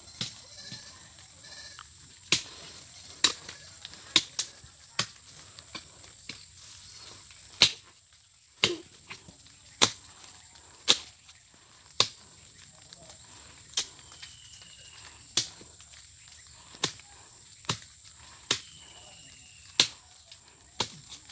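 A long-bladed knife chopping at bamboo shoots at the foot of a bamboo clump: about twenty sharp, single strikes at an uneven pace of roughly one a second.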